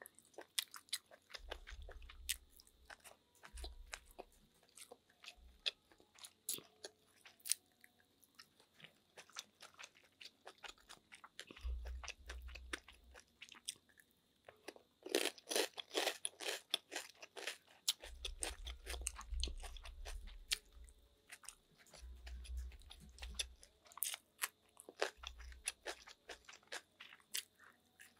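Close-miked eating of snails in their shells: a run of sharp, wet clicks and smacks as the meat is sucked from the shells and chewed, thickest about halfway through, with a few soft low thumps.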